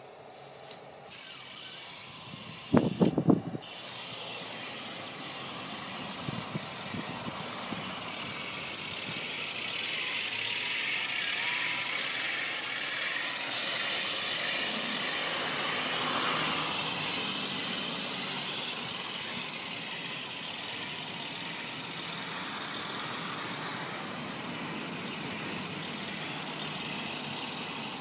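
Full-metal RC model Tiger tank running across grass, a steady whirring hiss that swells after a few seconds and holds. A short burst of loud knocks comes about three seconds in.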